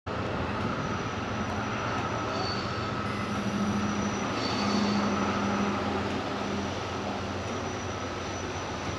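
Distant diesel locomotives of an approaching freight train: a low steady engine hum that swells about halfway through, under a broad rushing noise. Two short high chirps rise above it.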